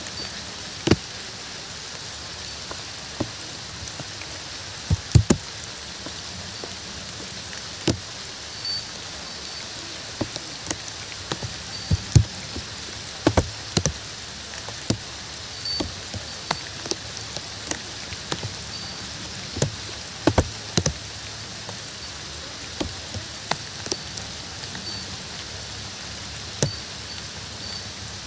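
Steady rain hiss with frequent large drops tapping sharply and irregularly close by.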